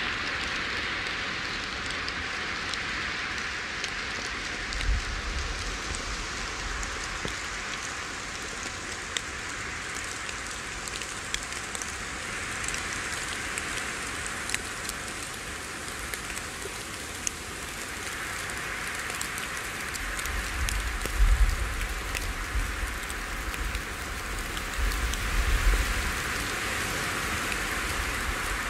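Small waves lapping and splashing against a fallen tree trunk and stones at the water's edge, a steady wash that swells and eases every several seconds. Low rumbles come through briefly about five seconds in and again, loudest, from about twenty to twenty-six seconds.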